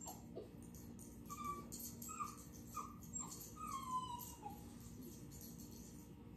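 Faint animal calls: about five short, high squeaky cries over a few seconds, the last one longer and falling in pitch, over a steady low hum.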